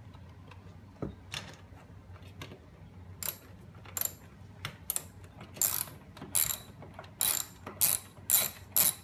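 Socket ratchet wrench worked back and forth on the side-mirror mount's nuts, its pawl rasping on each back-stroke. There are a few faint clicks at first, then from about three seconds in a quick run of roughly two strokes a second that grows louder.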